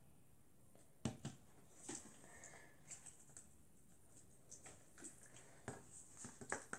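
Faint, scattered clicks and taps of a wooden stir stick and plastic cups being handled while mixing slime, with a sharper tap about a second in and another near the end.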